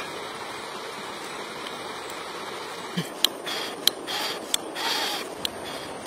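Shallow stream running over stones, a steady rushing hiss. From about halfway in, several sharp clicks and short scraping noises come on top of it, the clicks being the loudest sounds.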